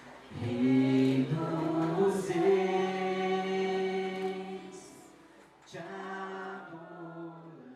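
Voices singing a slow worship chorus together in long held notes, one phrase swelling and fading away, then a second, softer phrase starting near the end.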